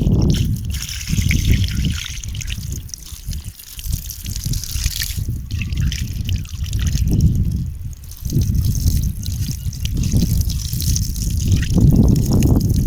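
Water trickling and dripping, a continuous splashing flow with scattered drops, carrying a low rumble that swells and eases every second or two.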